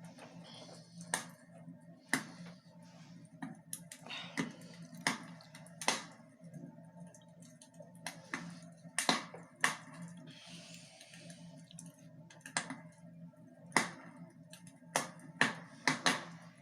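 Fire in a fireplace crackling, with about a dozen sharp pops at irregular intervals.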